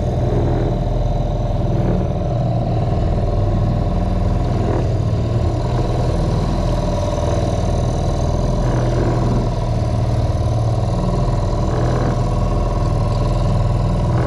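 Outboard motor running steadily at the stern of a small boat, pushing it along at trolling speed.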